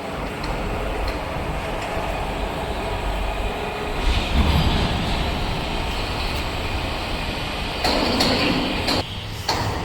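Heavy workshop machinery running steadily, with louder surges about four seconds in and again near the end, and a few sharp clicks.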